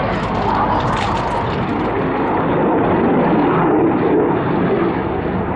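Aircraft flying past, its engine noise loud and steady.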